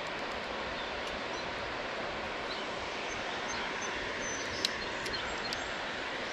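Steady rushing outdoor noise, with a few faint high chirps and one sharp click a little past the middle.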